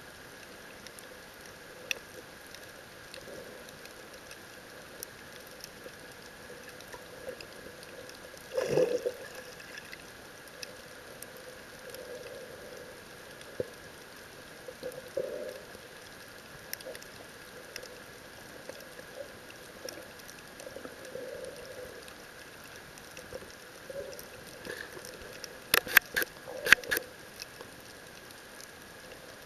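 Underwater ambience heard through a submerged camera: a steady hiss with scattered faint clicks, a gurgling swoosh about nine seconds in, and a quick run of sharp clicks or knocks near the end.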